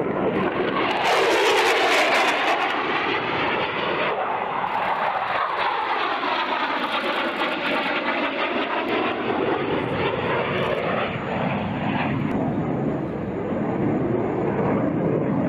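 Lockheed Martin F-16V Viper fighter jet flying past, its single jet engine heard as a continuous rushing noise. Its tone sweeps up and down as the jet passes and draws away. The noise is loudest about a second or two in.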